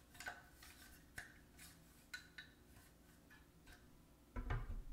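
Light, scattered clicks of the hard parts of a figure display stand being handled, then a louder knock and thud near the end as the stand's post is set into its base on the table.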